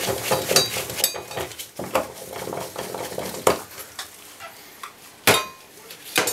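Metal clinking and scraping as a bathtub faucet handle is worked off its valve stem. Small rapid clicks come first, then a few separate sharp clinks, the loudest about five seconds in.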